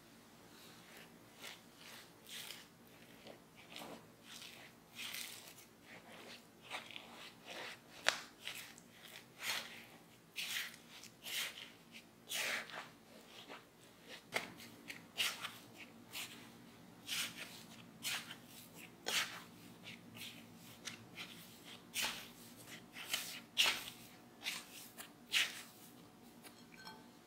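Silicone spatula stirring mashed potato and corn starch in a glass bowl: repeated short scraping, squishing strokes, sparse at first and coming about one or two a second from about ten seconds in.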